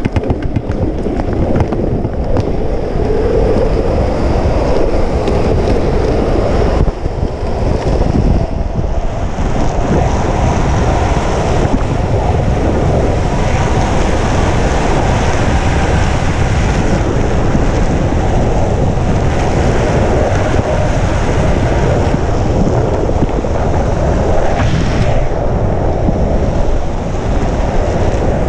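Loud, steady wind buffeting the microphone at downhill speed, mixed with the rumble of skateboard wheels rolling on a rough concrete road.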